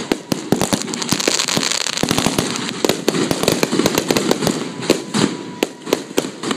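Aerial fireworks bursting overhead: a dense crackle of many sharp pops in quick succession, with a louder bang about five seconds in.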